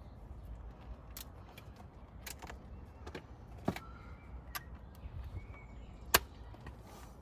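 Scattered sharp clicks and knocks of hand tools and brake parts being handled during a brake disc and pad change, about seven in all, the loudest a sharp knock about six seconds in, over a low steady rumble.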